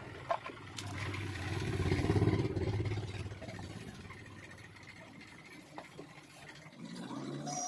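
An engine running, growing louder to a peak about two seconds in and then fading away, like a motor vehicle going past.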